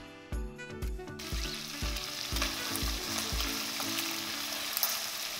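Chicken pieces deep-frying in oil in a pot: a dense, steady sizzle that starts suddenly about a second in. Background music with a steady beat plays under it at first and stops about halfway through.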